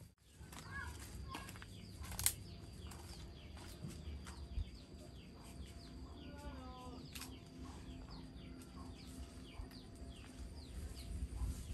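Chickens: many short, high, falling peeps throughout, with a short run of falling clucks about six seconds in and a few scattered knocks.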